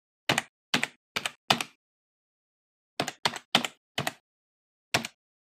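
Computer keyboard keystrokes used as a typing sound effect, struck one at a time: a run of four, a pause, four more, then a single one near the end.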